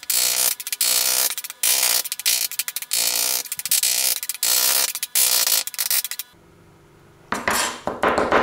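Knife chopping anchovies on a plastic cutting board: fast, repeated chops. The chopping breaks off for about a second near the end, then starts again.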